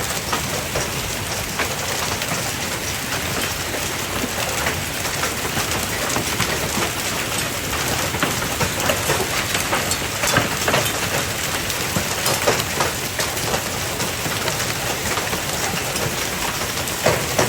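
Hailstones about an inch across pelting a house roof and gutters: a dense, steady rattle with many sharp clicks and knocks scattered through it.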